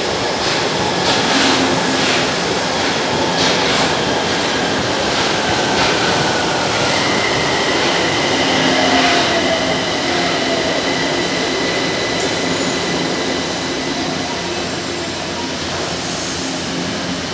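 São Paulo Metro trains running past along the platform, wheels knocking over rail joints, then a train slowing into the station with a falling whine.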